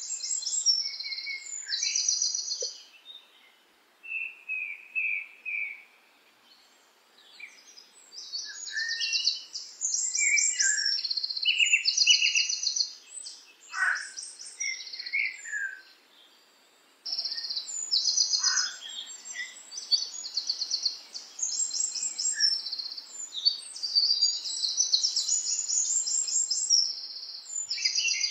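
Several birds chirping and singing in overlapping high-pitched rapid trills and short notes, with two brief lulls along the way.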